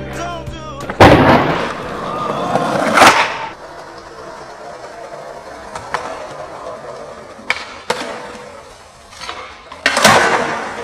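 Skateboard on concrete: wheels rolling, a loud board slap about a second in, then sharp pops and clacks of the tail and trucks, and a loud landing near the end.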